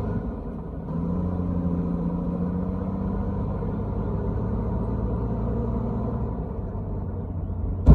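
Heavy diesel engine of a bulldozer running under load, dipping for a moment just after the start and picking up again about a second in. A single sharp knock right at the end.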